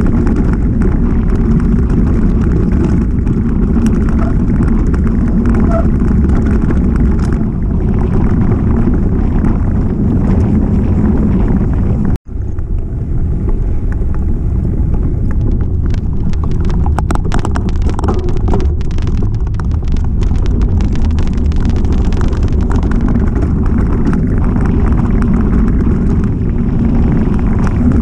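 Mountain bike descending a rough trail: a steady low rush of wind on the microphone and rolling tyres, with the bike rattling and clattering over bumps, most densely a few seconds after a brief dropout about twelve seconds in.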